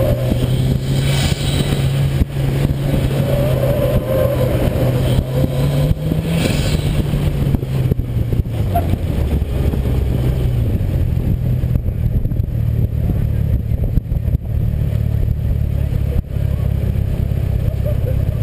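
Mitsubishi Lancer Evolution VIII's turbocharged 2.0-litre inline-four engine heard from inside the cabin, pulling at a steady pitch. It rises briefly about six seconds in, drops lower for a few seconds, then climbs again.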